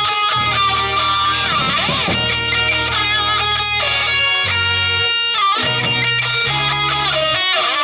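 Live rock band playing an instrumental break: an electric guitar holds and bends notes over a steady bass line.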